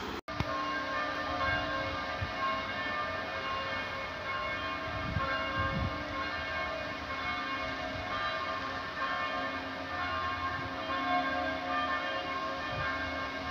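Church bells ringing, several bells sounding over and over in a continuous peal, over a low rumble.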